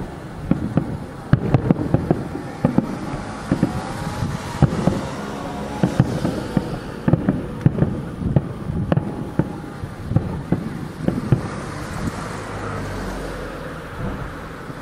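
Distant aerial firework shells bursting in a rapid run of booms, each trailing a rumbling echo, easing off briefly near the end. Wind rumbles on the handheld camera's microphone at times.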